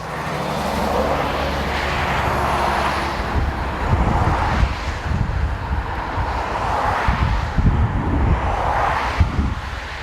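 Busy main-road traffic pouring in through a just-opened door: a steady wash of tyre and engine noise that swells every couple of seconds as cars and trucks pass, over a low rumble.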